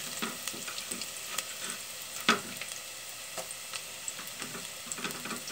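Sliced onions and freshly added chopped garlic sizzling in hot oil in a pot, sautéing, with steady hiss, small scattered crackles and one sharper click about two seconds in.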